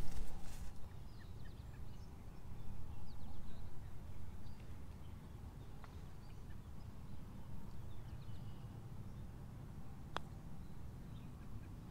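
Faint outdoor ambience with a low rumble and scattered distant bird chirps. About ten seconds in, one sharp click of a golf club striking the ball on a short chip shot.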